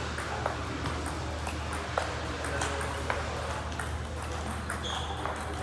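Table tennis balls clicking sharply off rackets and tables during rallies, several clicks a second at irregular spacing as nearby tables play at the same time, over a steady low hum.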